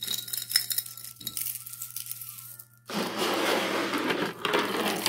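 Costume-jewelry beads and chains clinking against a glass jar as a tangle is pulled out of it, with a thin ring from the glass after the knocks. About three seconds in this gives way to a dense jingling rattle of beads and chains being handled.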